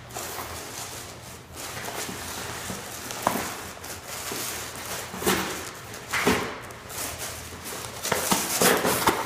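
Norfolk terriers tearing and chewing open cardboard boxes: steady rustling and scraping of cardboard, with several short, louder rips in the second half.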